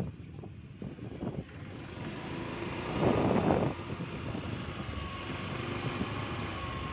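A vehicle driving along a wet road: steady tyre and road noise, with a louder rush about three seconds in. From about three seconds in, a short high beep repeats evenly, a little under twice a second.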